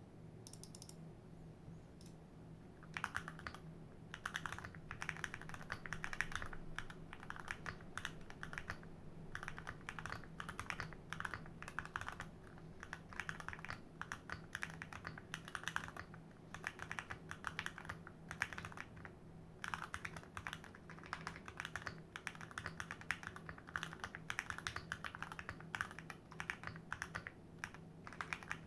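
Typing on a modded Glorious GMMK Pro mechanical keyboard: a few single key presses, then fast continuous typing from about three seconds in, in runs with brief pauses.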